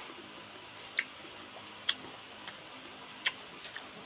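Lip smacks and mouth clicks of someone chewing green mango: about six short, sharp clicks at uneven intervals, two close together near the end, over a faint steady hum.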